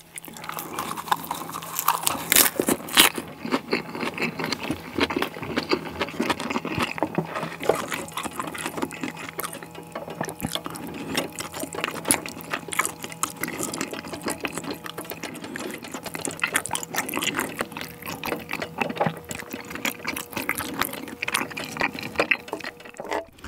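Close-up wet chewing of a lettuce wrap filled with spicy stir-fried chicken, over dense irregular crackling and bubbling from the sauce heating on an electric grill pan.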